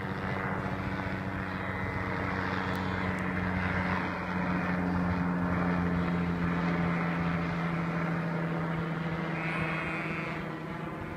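A steady engine drone with a low hum. It grows louder toward the middle and eases off near the end.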